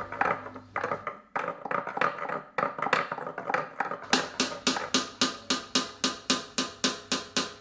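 A ballpoint pen tapping on a plastic object: scattered taps at first, then from about four seconds in a fast, even rhythm of four to five taps a second, each with a short ring.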